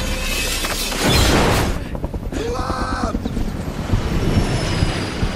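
Film sound effects of a truck crash: a loud rush of noise about a second in, a brief arching screech near the middle, then a run of heavy thuds as the truck tumbles, with orchestral score underneath.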